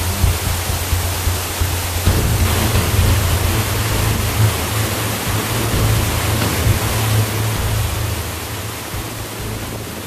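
Steady rushing of a waterfall cascading over boulders, a dense hiss with a low rumble underneath, growing somewhat quieter near the end. Faint music lies beneath it.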